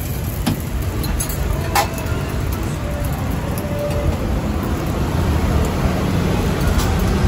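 Steady low rumble of street background noise, with a brief click about two seconds in.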